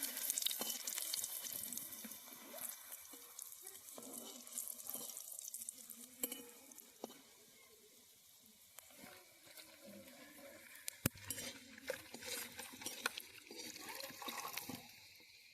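Hot oil sizzling and crackling with garlic and dried red chillies frying in it. It is loudest at first and dies down over the first several seconds, with scattered sharp clicks later on.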